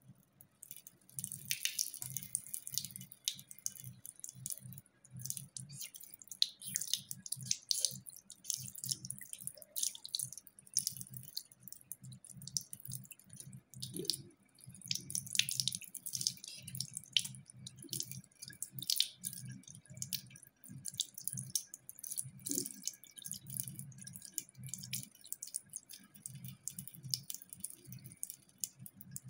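Cat lapping water from a trickle at a tap, a rapid run of small wet clicks, with water dripping into a ceramic sink.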